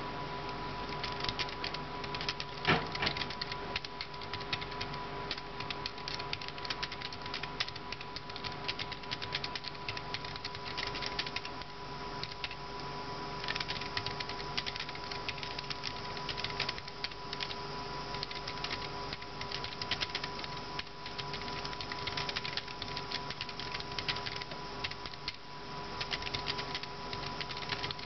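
Typing on an Elecom TK-FBP017BK Bluetooth keyboard: quick, irregular key clicks throughout, with one louder key strike about three seconds in. A steady background tone sits underneath.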